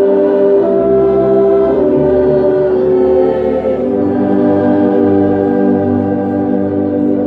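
Church orchestra and congregation performing a hymn, with a French horn playing close by in the foreground; sustained chords change every second or so, then settle into a long held chord about four seconds in.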